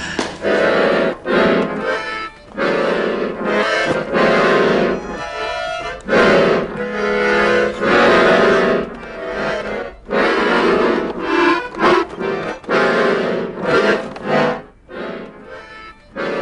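Piano accordion playing a tune in short phrases of chords, broken by brief pauses.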